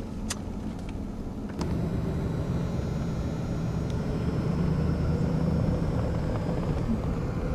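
Vehicle engine running steadily with a low hum and rumble, stepping up in level about a second and a half in.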